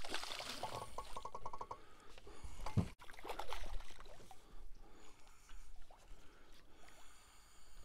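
A hooked bass splashing and thrashing at the water's surface beside the boat. About a second in there is a short quick run of clicks from the fishing reel, and a dull thump near the three-second mark.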